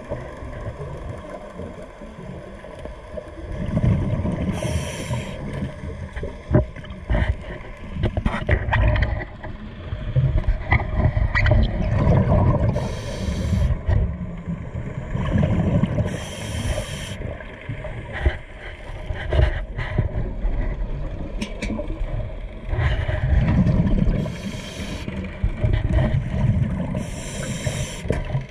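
Scuba diver's own breathing heard through an underwater camera housing: the regulator hisses briefly on each breath every few seconds, and the exhaled bubbles rumble and gurgle in between.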